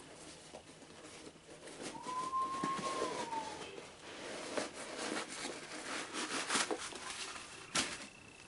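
A new Adidas Dame 6 basketball shoe being handled and its packing taken out: scattered rustling and light knocks, busiest in the middle, with a sharper knock near the end. About two seconds in, one thin tone of about a second and a half rises slightly and then falls away.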